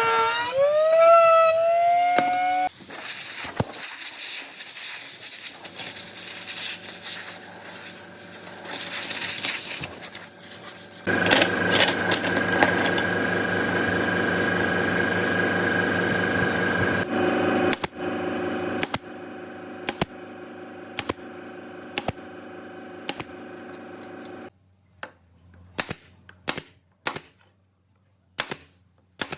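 Woodworking power tools in turn: a motor's pitch sliding up and then cutting out, a machine running with a steady tone for several seconds, then sharp knocks or taps about once a second that thin out near the end.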